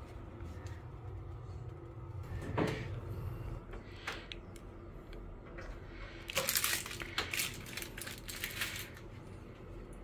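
Metal plumbing fittings being handled: scattered clicks and clinks, then a quick run of rattling and clinking about six to nine seconds in, over a low steady hum.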